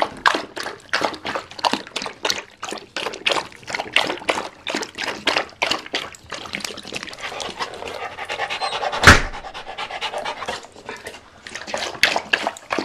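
Yellow Labrador retriever lapping water from a plastic bowl in quick, splashy laps, about three or four a second. The laps turn into a messier slosh for a few seconds, with a single sharp knock a little after nine seconds in.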